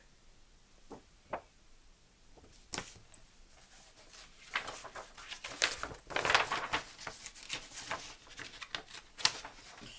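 Paper and a picture book being handled: a few light taps, then a run of rustling and soft clicks from about four and a half seconds in as pages are turned.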